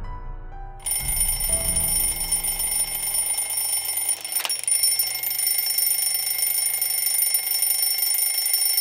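Alarm clock ringing steadily, starting about a second in, a continuous high ring that does not let up. Soft piano music fades out underneath it.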